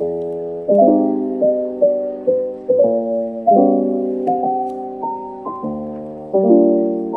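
Background piano music: a gentle melody over chords, each note struck and dying away.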